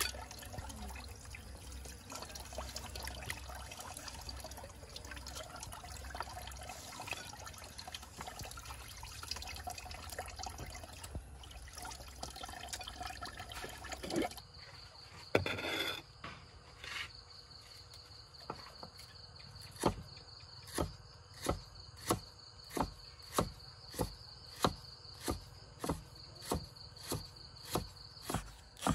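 Wet squelching as hands squeeze and turn raw rat meat in a ceramic dish. About halfway through, a cleaver starts chopping lemongrass on a round wooden chopping block: sharp, even chops about one and a half a second, with a steady high insect trill behind them.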